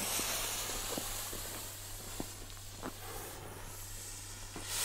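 Lit fuse of a firework rocket hissing and sputtering, with a few faint crackles. The hiss swells near the end as the rocket is about to fire.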